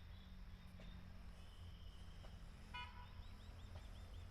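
Faint rural outdoor ambience: a steady low rumble, a brief pitched toot like a distant horn about three seconds in, then a run of quick high chirps at about five a second.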